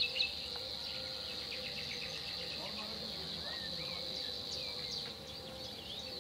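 A steady high-pitched insect buzz with scattered short bird chirps over it. Two brief soft knocks come right at the start.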